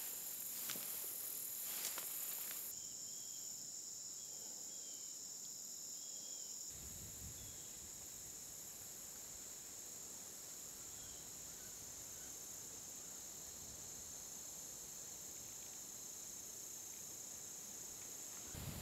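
Steady high-pitched chorus of late-summer insects such as crickets and katydids, with a few sharp ticks in the first couple of seconds and a few short faint chirps a few seconds in.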